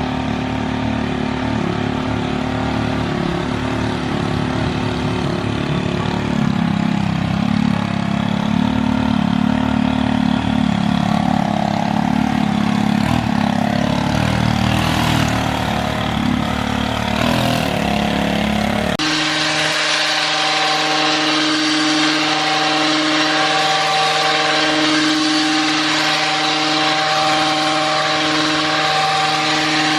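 Small petrol engines of yard equipment running steadily. About two-thirds of the way through the sound changes abruptly to a steadier, higher-pitched engine hum.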